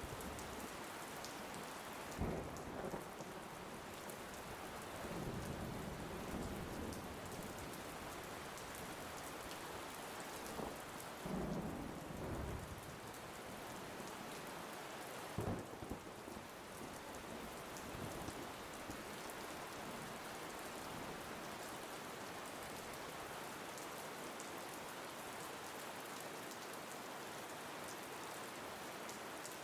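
Steady rain falling, with several low rolls of thunder swelling and fading during the first half or so.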